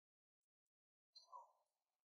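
Near silence, broken by one faint, brief sound just past halfway.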